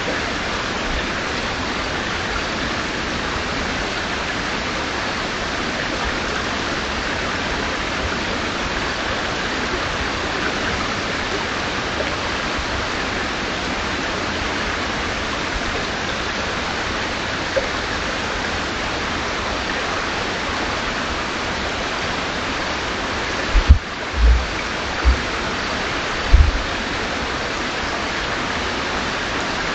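River water rushing steadily, an even noise with no break. A few short, deep thumps come close together near the end.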